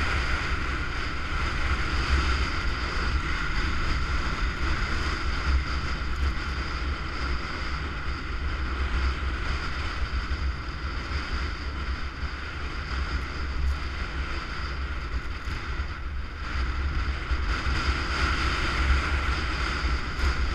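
Wind buffeting a GoPro action camera's microphone while moving downhill, a heavy steady rumble, with a constant hiss of sliding over snow underneath.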